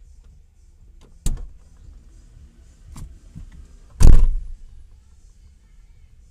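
A few sharp knocks and clunks inside a parked car: one about a second in, a lighter one about three seconds in, and a much louder thump about four seconds in, over a low steady rumble.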